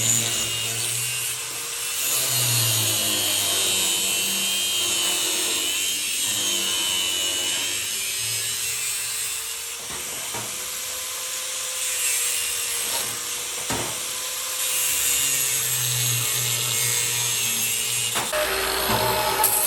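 A power tool running steadily with an abrasive scraping against an old knife's metal during restoration, over a steady motor hum.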